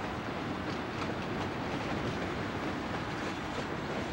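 Empty coal hopper cars of a freight train rolling past, a steady rumble of steel wheels on the rails.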